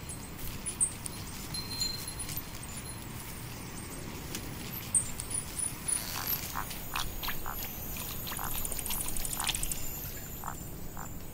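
Nature ambience of frogs croaking in short, repeated calls, mostly in the second half, over a steady hiss with scattered high chirps.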